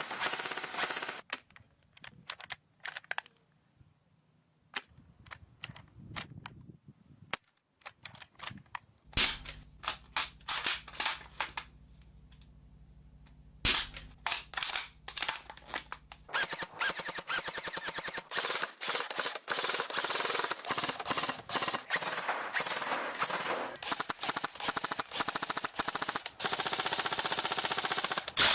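Gas-powered airsoft guns firing: scattered single shots and short strings in the first half, then rapid, sustained automatic fire from a little past halfway on.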